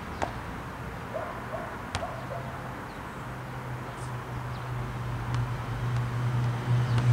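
A few single basketball bounces on an asphalt court, with the low hum of a passing car's engine that starts about two seconds in and grows steadily louder.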